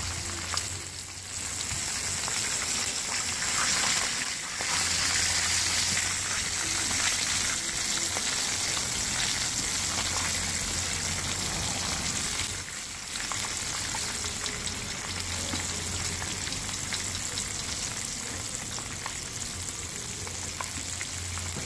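Whole floured porgies shallow-frying in hot oil in a skillet: a steady sizzle with fine crackles, dipping briefly in loudness three times.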